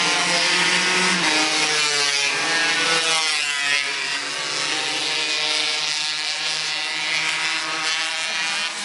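Engines of two racing karts running at high revs, their pitch rising and falling as they accelerate and pass.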